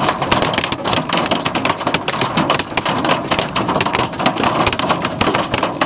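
Hail mixed with rain hitting a vehicle's windshield and body, heard from inside the vehicle: a loud, dense, unbroken clatter of impacts.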